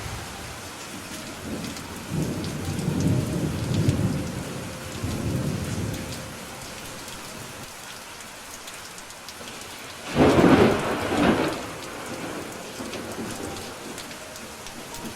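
Steady rain falling, with a long low rumble of thunder from about two to six seconds in. About ten seconds in comes a sudden loud thunderclap, a second crack follows a moment later, and a fainter rumble trails off after it.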